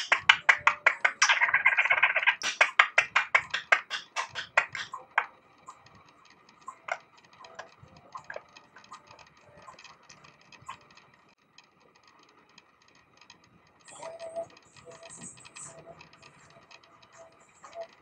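Budgerigar chattering: a fast run of clicks over a warbling buzz, loud for the first five seconds, then trailing off into soft scattered clicks with a few faint high chirps near the end.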